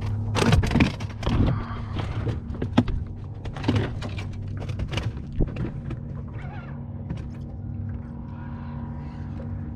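A steady low motor hum from a boat, with a run of sharp knocks and clatter over the first several seconds, then the hum alone.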